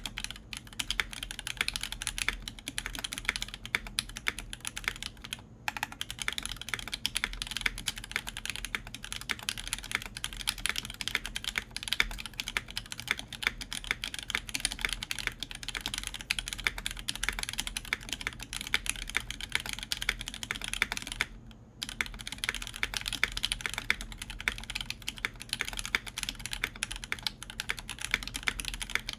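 Fast continuous typing on a Tech Bear TB-65F mechanical keyboard in bottom-mount configuration: lubed JWK Alpaca linear switches with 62 g springs and films, GMK keycaps, on a full copper plate. The typing stops briefly twice, about five seconds in and near three quarters of the way through.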